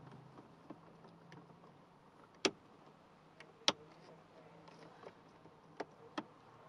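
Sharp plastic clicks and taps as hands press on and handle the dashboard switch strip holding a newly fitted USB charging port: two loud clicks in the middle and two lighter ones near the end.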